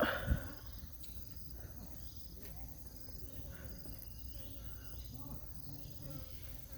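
Insects chirping in a steady background chorus, with a brief loud noise and a low thud right at the start.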